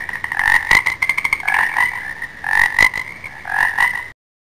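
Frog croaking: short calls repeating about once a second, with a fast rattling trill about a second in. The sound cuts off suddenly near the end.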